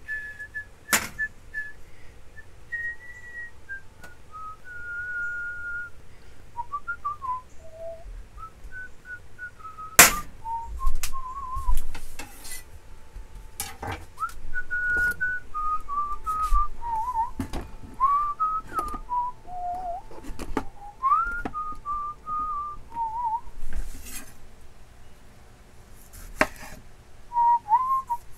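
A man whistling a wandering tune of held and sliding notes, broken now and then by sharp knocks and clicks of dishes and kitchen utensils.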